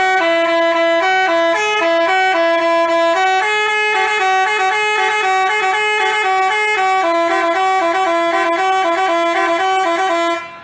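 Basuri 'telolet' multi-tone bus horn playing a quick tune: several horn notes sound together and hop between a few pitches without a break, then cut off just before the end.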